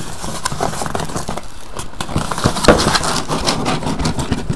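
Cardboard shipping case being handled and its flaps opened: scraping and rustling, with irregular knocks and taps as the case and the sealed boxes inside are moved. The loudest knock comes a little before three seconds in.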